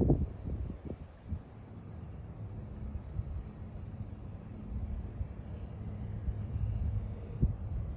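Low steady rumble with a few soft knocks near the start and one about seven seconds in, under a short, very high chirp that repeats irregularly about once a second.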